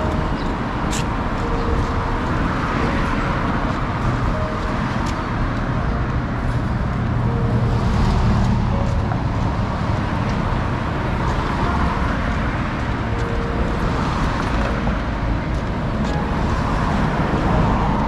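City street traffic: a continuous noise of cars running past, with a heavier vehicle swelling up and passing about eight seconds in.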